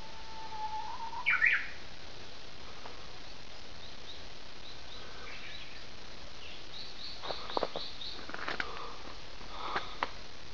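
Japanese bush warbler singing its 'hoo-hokekyo' song once: a long drawn-out opening whistle that rises slightly into a quick 'hokekyo' flourish about a second and a half in. Later, a rapid series of short high chirps and several quick bird calls follow over steady background hiss.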